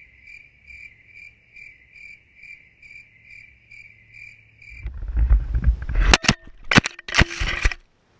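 A cricket chirping steadily, about three high chirps a second, for the first five seconds. Then a loud wind rush on the microphone and a series of sharp knocks and clatter as the bush axe with the GoPro taped to it is swung and the GoPro flies off.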